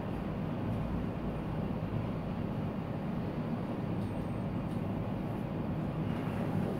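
Metal fidget spinner spinning on its ball bearing on a tabletop, a steady low rumble without a break.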